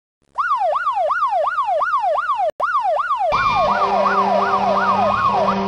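Emergency-vehicle siren in a fast yelp, its pitch sweeping up and down about two and a half times a second. A little past halfway, more siren sound joins, with steady held tones and a noisy rumble under the sweeps.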